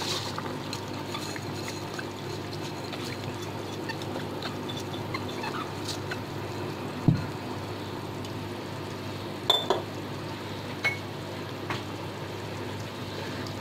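Rice pouring into a wok of boiling water at the start, then the water bubbling steadily around the heap of rice. A few light knocks and clinks of utensils, the sharpest about seven seconds in.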